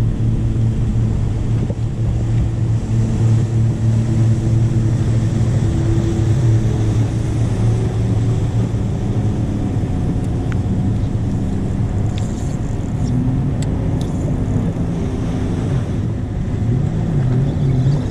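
An engine running steadily at a low, even pitch that wavers slightly, with a few faint clicks about two-thirds of the way through.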